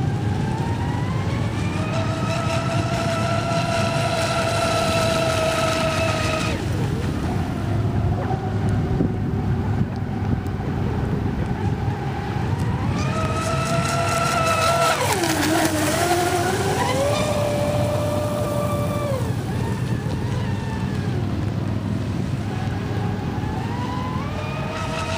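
RC race boat's SSS 3674 2075kv brushless motor on 6S, with its surface-drive prop, whining at high speed on passes. The whine climbs and holds for a few seconds, then cuts off; it comes back with a dip and rise in pitch midway, and climbs again near the end. Steady low wind rumble on the microphone underneath.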